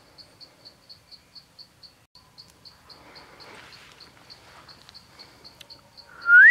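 Steady high-pitched insect chirping, about four short pulses a second, typical of a cricket. Near the end a single loud whistled note rises and then falls.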